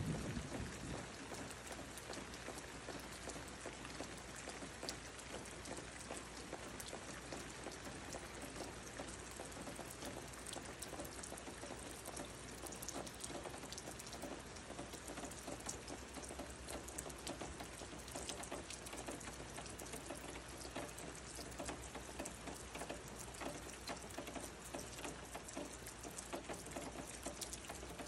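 Rain falling steadily, a dense patter of drops, with the tail of a low thunder rumble fading out in the first second.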